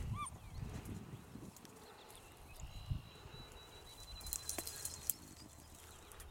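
Beagles working silently through dry grass and brush, not baying: soft rustles and a few light clicks of stems. A short chirp sounds just after the start, and a faint high trill runs through the middle.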